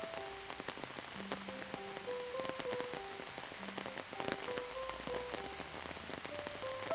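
Steady rain with many single drops ticking, over a soft, slow melody of held notes with a few low bass notes.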